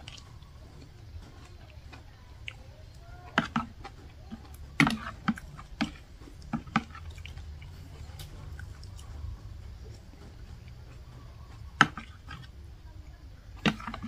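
Metal spoon clinking against a ceramic bowl during a meal of soupy mushroom curry: sharp clinks in small clusters, about nine in all, the loudest around five seconds in and near twelve seconds. Soft slurping and chewing between the clinks.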